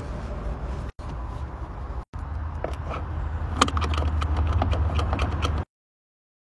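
Cleaning tools working on the plastic centre-console trim: a towel wiping, then a thin tool picking and scraping along the seam between the cup holders in a quick run of small scratches and clicks, over a steady low rumble. The sound drops out briefly twice and cuts off abruptly near the end.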